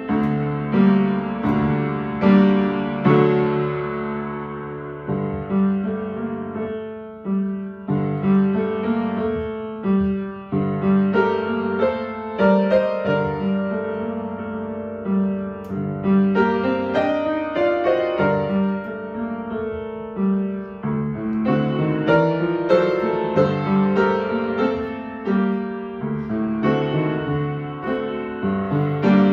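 Piano playing a piece, struck notes ringing and fading in steady succession, with a rising run of notes about halfway through.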